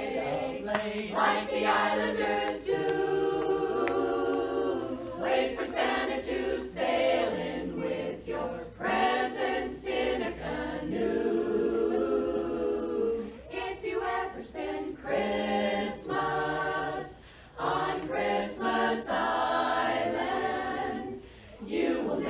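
Women's barbershop chorus singing a cappella in close harmony, with sustained chords and short breaks between phrases.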